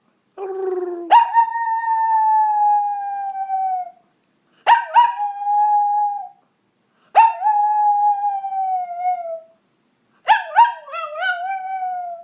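A dog howling four times. Each howl starts with a quick rise in pitch and then holds a long, slowly falling tone, with short pauses between them.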